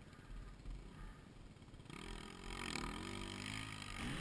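Faint dirt bike engine that comes in about two seconds in and grows louder, its pitch dipping and then climbing again as the throttle is worked. Before that there is only a faint low rumble.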